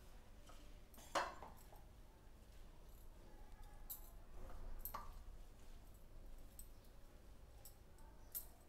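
Faint kitchen handling sounds as mint leaves are pushed by hand into a steel mixer-grinder jar: light rustles and small clinks, with a sharper knock about a second in and another about five seconds in.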